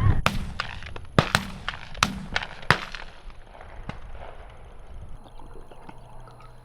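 Shotguns fired at doves flying over: about five sharp shots in the first three seconds, two of them in quick succession, then a few fainter distant shots.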